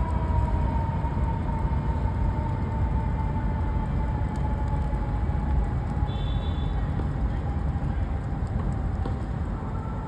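Steady low outdoor rumble, with a faint whine slowly falling in pitch running through it.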